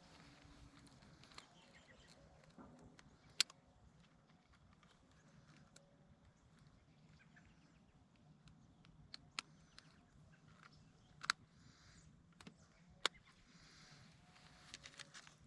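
Quiet handling noise: about five sharp clicks and knocks, spaced irregularly over a faint steady background, as a freshly caught largemouth bass is handled and weighed on a fish scale.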